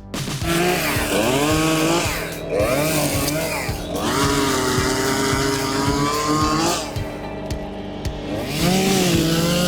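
Chainsaw engine revving up and down in several bursts, its pitch gliding up under the throttle and dropping back between cuts, over background music with a steady beat.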